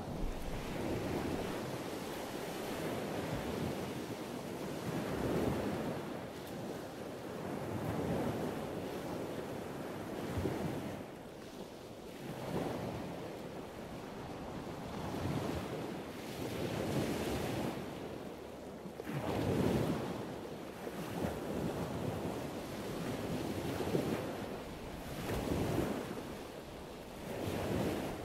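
Waves washing in with wind blowing across the microphone, a rushing noise that swells and eases every two to three seconds.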